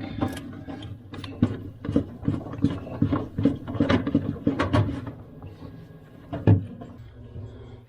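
Plastic freezer interior panels being worked loose and pulled off by hand: a string of irregular clicks, knocks and scrapes, with one louder knock about six and a half seconds in.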